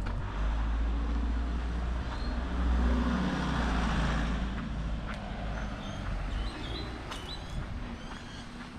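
A motor vehicle driving past on the street, its engine rumble and tyre noise swelling to a peak about three seconds in, then fading. A few short bird chirps near the end.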